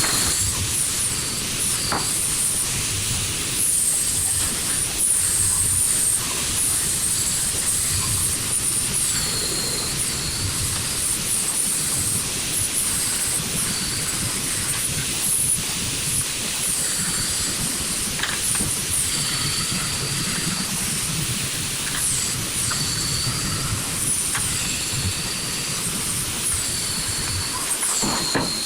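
Electric arc welding: a steady hissing, crackling arc held for a long run with no break.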